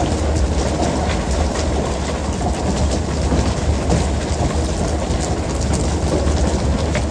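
Steady low rumble of the fishing boat's engine with water rushing along the hull, and scattered light knocks and clicks.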